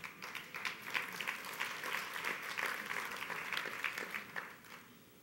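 Audience applauding with many hands clapping, dying away about four and a half seconds in.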